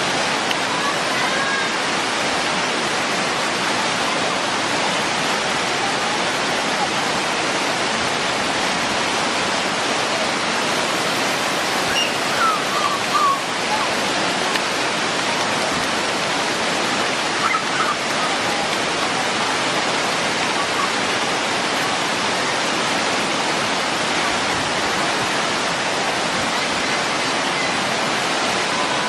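Waterfall rushing: a steady, loud, unbroken noise of falling water.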